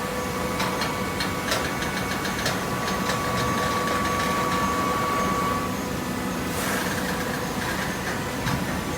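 Hydraulic paper baler running: a steady hum from its motor and pump, with a tone that cuts off about six seconds in. A run of clicks and knocks comes in the first few seconds, and a short hiss follows just after the tone stops.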